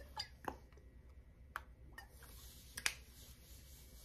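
Faint scattered clicks and light taps of a hot sauce bottle being shaken out over raw chicken and set aside, with a brief soft hiss a little past the middle.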